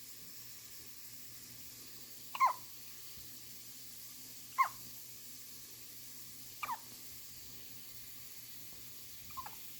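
A two-week-old newborn baby hiccupping: four short, high hiccups about two seconds apart, the last one fainter, over a faint steady hum.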